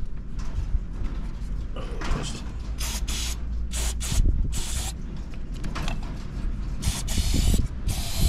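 Aerosol can of starting fluid sprayed down a carburetor in about half a dozen short bursts in the second half, with mechanical handling noise around them.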